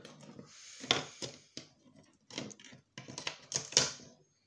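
Irregular clicks and knocks of small plastic and electronic parts being handled and pried apart, with a scratchy scraping in the first second or so.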